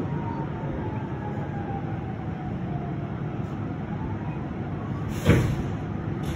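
Steady low rumble of vehicle engines and traffic, with a faint fire-truck siren wailing down and then back up. One sharp knock about five seconds in is the loudest sound.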